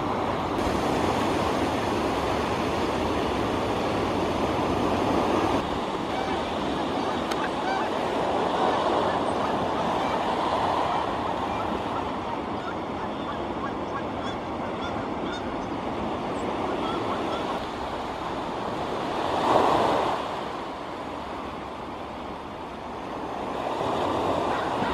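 Surf washing steadily onto a sandy beach, with scattered short animal calls over it and one brief louder swell about twenty seconds in.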